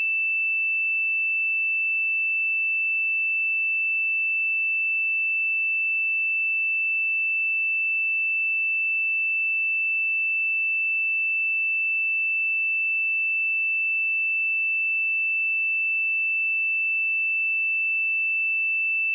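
A pure 2651 Hz sine-wave test tone, held steady at one pitch and level throughout.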